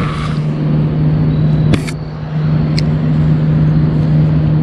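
A steady low mechanical hum at one unchanging pitch, with a few light clicks about two and three seconds in.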